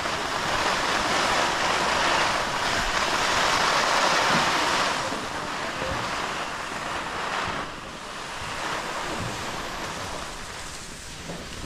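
Skis sliding and scraping over packed piste snow, mixed with wind rushing over the microphone; the hiss is loudest for the first few seconds and eases off about halfway through.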